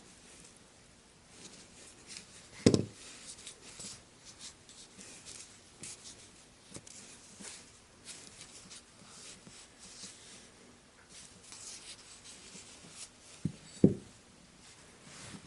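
Light rubbing and scratching of hand-cleaning the parts of a disassembled folding knife, with two sharp knocks, about three seconds in and near the end, the second a quick double.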